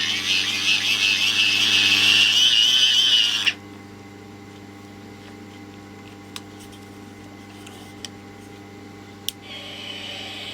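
Wind-up radio: a loud hissing whirr for about three and a half seconds that cuts off suddenly, then three sharp clicks, and a fainter hiss coming in near the end.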